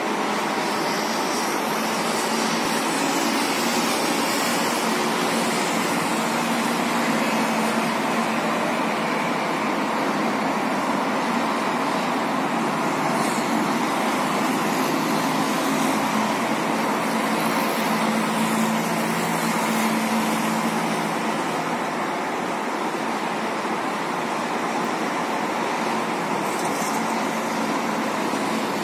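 Steady traffic noise from busy multi-lane highways below, a continuous wash of tyres and engines, with a faint low engine hum that comes and goes.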